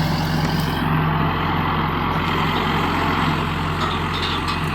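Tractor engine running steadily at constant speed, with a low hum and an even wash of noise over it.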